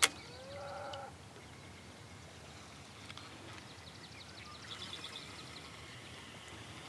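A sharp click, then about half a second in a short pitched animal call lasting about half a second. Faint quick high ticks follow around five seconds in, over quiet outdoor background.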